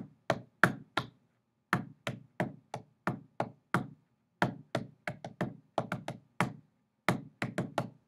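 Hand tapping out the rhythm of a four-line chant: groups of sharp taps mixing quick sixteenth-note pairs with slower eighth and quarter notes, with a short pause between phrases.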